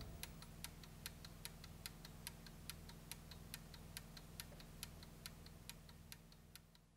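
Mechanical clock ticking fast and faint, about five ticks a second, some ticks stronger than others, over a low steady hum; it fades out near the end.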